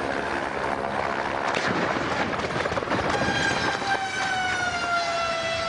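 Helicopter crashing: a rush of rotor noise broken by a run of crunching impacts in the first half. About halfway through, a whine with several overtones starts and slowly sinks in pitch.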